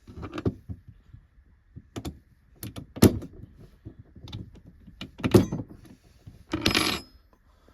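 Metal bracket of a door security latch being handled and offered onto bolts on a van's sliding door: a run of sharp clanks and knocks, the loudest about three seconds in, and a short scraping rattle near the end.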